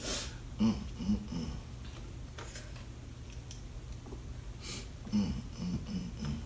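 A person blowing out hard through the mouth, with short low hums and groans, from a mouth burning after spicy mala noodles. One sharp exhale comes at the start and another about four and a half seconds in.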